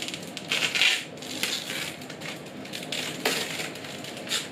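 Thin protective plastic film being peeled off a monitor's plastic back and stand and crumpled in the hand, crinkling in irregular bursts; the loudest crinkle comes about a second in.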